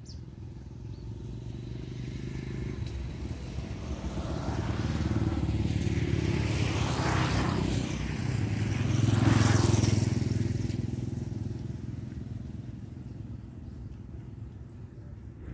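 A motor vehicle passing by: its engine grows louder over several seconds, peaks a little past the middle, then fades away.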